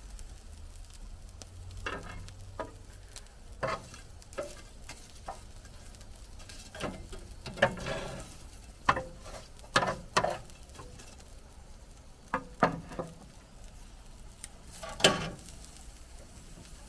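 Wood fire in an open grill crackling and popping at irregular moments, the loudest crack near the end, over a low sizzle of meat cooking on a grill basket above the coals.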